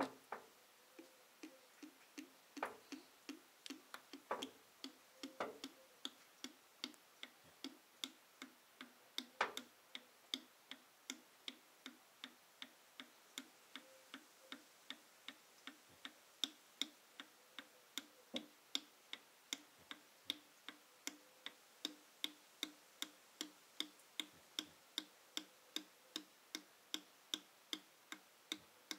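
Motor oil glugging out of a tilted can into an engine's oil filler as air gulps back into the can, a short even glug about twice a second. A few louder clicks come in the first ten seconds.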